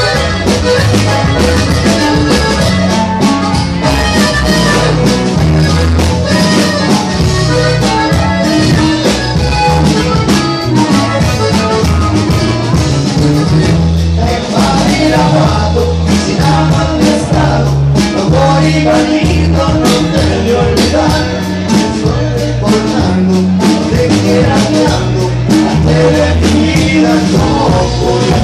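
Norteño band playing live and loud: accordion over electric bass and drums with a steady beat.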